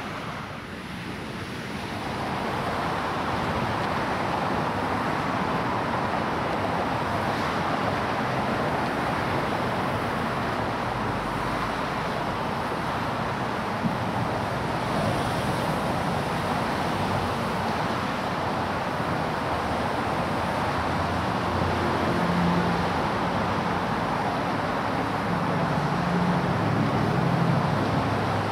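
Steady road traffic passing close by, a continuous rush of tyres and engines that grows louder about two seconds in. Near the end a deeper engine hum from a heavier vehicle joins it.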